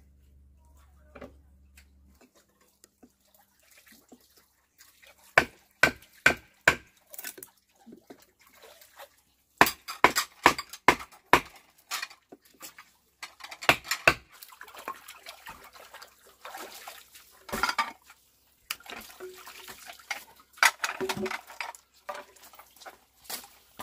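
A series of sharp knocks and clattering in irregular groups, with stretches of rustling or splashing between them.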